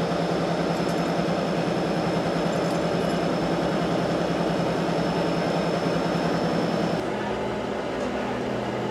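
Heavy truck diesel engine running steadily with a fast, even chugging. About seven seconds in it cuts to another engine idling steadily.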